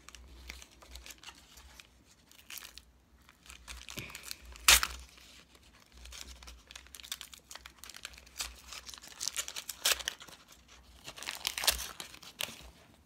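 Match Attax card pack wrapper being torn open and crinkled by hand: a run of crackles and rips, the loudest a single sharp tear about four and a half seconds in.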